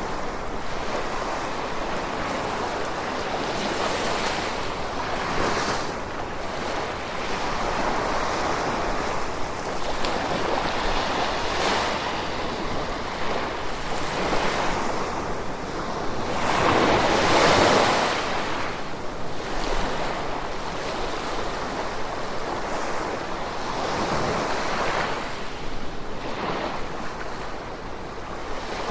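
Gentle ocean waves washing in and drawing back in a continuous wash that swells and fades every few seconds. The biggest wave breaks a little past halfway.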